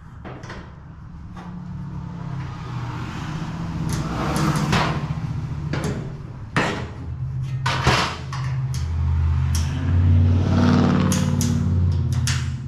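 Scattered knocks and clunks of sheet-metal body panels being handled and clamped on a bare car body shell, about a dozen spread through, over a low droning hum that grows louder in the second half.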